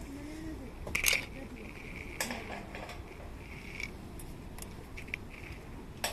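A few light metallic clinks and knocks of metal camping gear being handled: one about a second in, another about two seconds in, and one at the very end, each ringing briefly.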